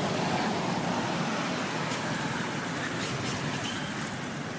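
Steady outdoor background noise, a low rumble with hiss, with no distinct calls or knocks.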